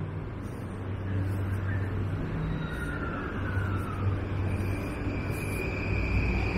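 Street traffic with an emergency-vehicle siren sounding in the distance: a falling tone about midway, then a higher held tone coming in near the end.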